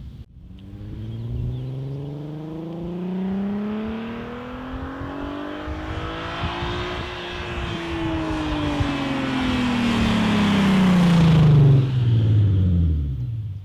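A Volkswagen Passat's naturally aspirated 3.2-litre VR6 with a Varex valved exhaust, driving past. The engine note rises steadily for about seven seconds as it accelerates, then falls away while the car keeps getting louder. It is loudest about twelve seconds in as it passes, then dies off quickly.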